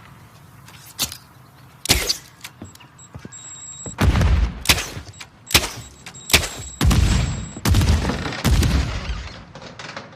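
Bow-and-arrow sound effect: a series of about ten sharp snaps and heavy thuds, the first two spaced out and the rest coming faster from about four seconds in, with a thin high whine under some of them.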